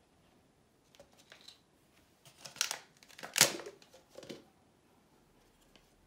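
A handful of short crinkling, scraping rustles of plastic being handled, the loudest a sharp crackle about three and a half seconds in.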